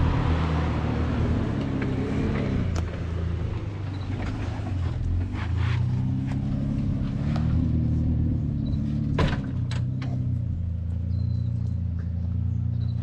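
Four-wheel drive's engine running at low speed on an off-road track, its pitch dropping and then rising again as the revs change. Several sharp knocks sound over it, the loudest about nine seconds in.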